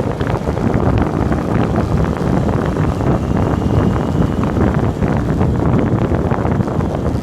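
Wind buffeting the microphone, a loud rumble with rapid flutter, as the bike rides fast downhill.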